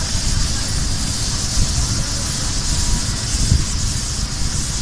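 Paint spray gun hissing steadily as it sprays silicone antifouling paint onto a ship's hull, over a constant low rumble.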